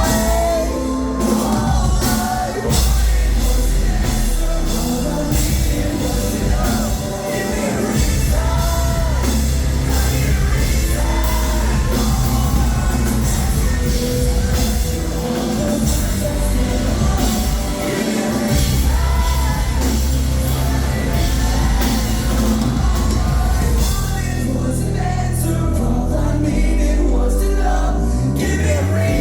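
Live band playing a song, with a singer's voice over the full band.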